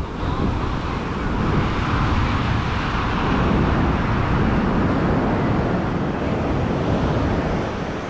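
Surf washing on a beach, mixed with wind buffeting the microphone; the rush swells to a peak about halfway through and eases off near the end.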